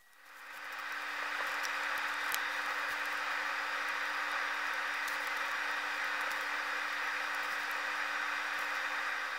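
A steady mechanical whir with a constant low hum under it, coming up over the first second and then holding level.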